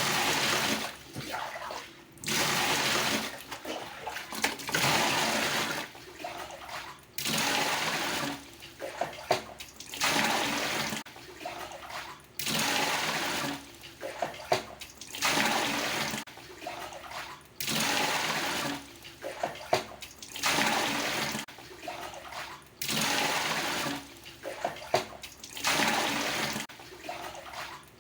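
Water scooped with a dipper from a traditional Indonesian bathroom water tub and poured out, over and over: a splashing pour about every two and a half seconds, each lasting about a second, with smaller splashes and dips of the scoop between them.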